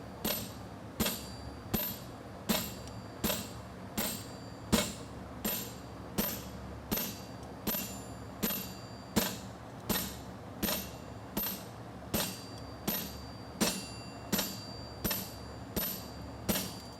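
Hand hammer striking a hot steel horseshoe bar on the anvil while fullering the shoe: a steady run of blows about every three-quarters of a second, each with a bright metallic ring. A steady fan hum runs underneath.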